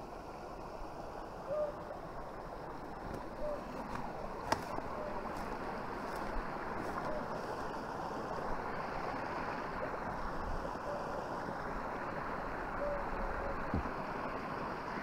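Small creek running over rocks: a steady rushing of water that grows louder in the second half as the creek gets nearer. A sharp click comes about four and a half seconds in.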